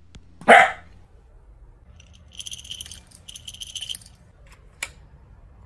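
A small dog gives one short bark, then dry kibble rattles in a small metal cup in two short spells, as a few pieces are served into a bowl.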